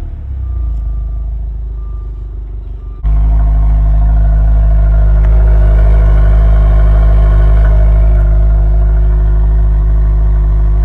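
2026 Subaru WRX's turbocharged 2.4-litre flat-four on its stock exhaust. Over the first three seconds the sound of a rev dies away. After an abrupt cut about three seconds in, the engine runs loudly at a steady speed.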